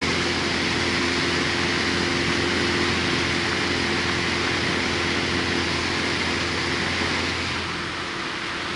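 Single-engine light aircraft's engine and propeller running steadily in flight, heard from inside the cockpit over a steady rush of air. The drone eases off a little near the end.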